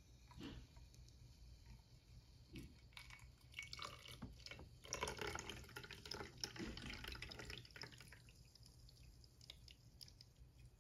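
A cocktail pouring faintly from a metal shaker's strainer top into a glass, a thin stream splashing and trickling. It is loudest around the middle.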